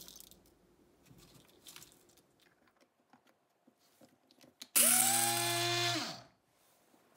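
Electric blade spice grinder run in one short burst of about a second and a half, grinding roasted whole spices and dried red chillies; the motor whine starts abruptly and falls in pitch as it stops. Before it come faint clinks and scrapes of a spoon tipping spices into the grinder cup and the lid going on.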